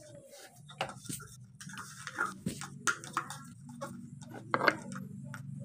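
Light, irregular clicks and taps of a small spoon stirring and knocking inside a plastic toy cup.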